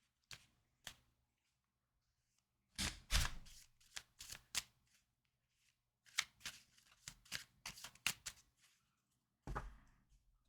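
Tarot cards being shuffled by hand, in several short bursts of rapid clicking and rustling with pauses between; the loudest burst comes about three seconds in.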